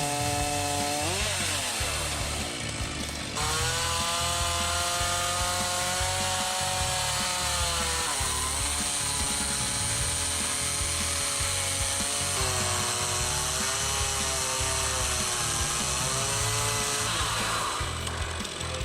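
Saw engine running at high revs while cutting wood; its pitch sags and recovers under load about a third of the way in, again past the halfway point, and near the end. Background music with a steady beat plays underneath.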